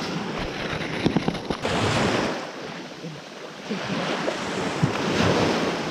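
Small waves breaking and washing up over a sandy shore, swelling twice as each wave runs in. Wind catches the microphone.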